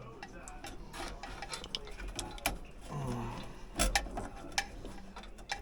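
Scattered light clicks and taps of wire and small metal parts being handled while an air handler is rewired, with one sharper knock a little under four seconds in. A short mumble or grunt comes about three seconds in.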